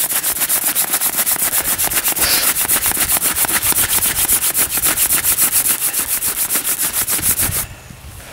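Friction-fire hand drill: a wooden spindle spun fast back and forth between the palms, its tip grinding into a notched hearth board to build an ember. A rapid, even rubbing that stops suddenly about a second before the end.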